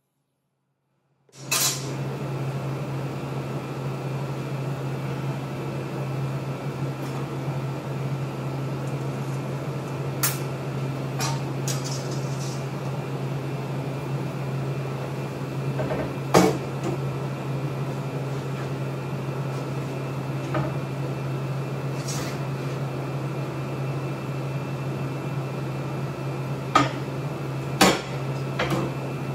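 A steady low hum of shop equipment, with several sharp metallic clanks and knocks as the steel welding-table frame is handled. The louder knocks come about halfway through and twice near the end. The hum starts about a second and a half in.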